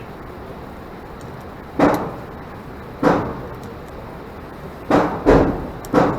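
Glock 44 .22 LR pistol firing five single shots at uneven intervals, each a sharp crack with a short echoing tail; the last three come close together in the final second and a half.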